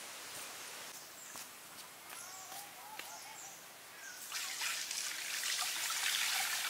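Water poured from a pot and splashing loudly for about two seconds near the end. Before that, a faint trickle and a few bird chirps.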